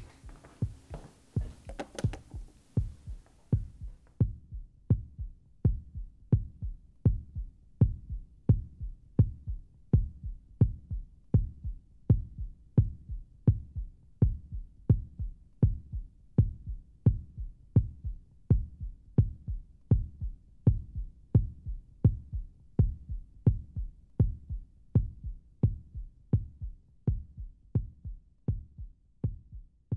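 Outro background track of a steady, heartbeat-like low thumping beat, about one and a half beats a second, each beat topped by a sharp click.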